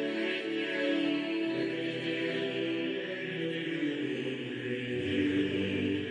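Background music: slow choral singing in long held notes, the chord changing about a second and a half in and again near the end.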